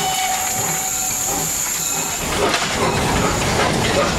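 Cab noise of the steam locomotive 38 1301, a class 38 (Prussian P8), on the move: a steady hiss of steam over the running and rattling of the engine, getting louder about halfway through.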